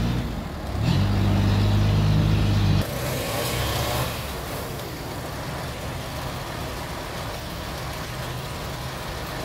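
Toyota 3.5-tonne forklift engine working hard under the weight of a heavy log: a steady, loud drone with a short dip just after the start. About three seconds in it drops suddenly to a lower, steady running sound, which lasts to the end.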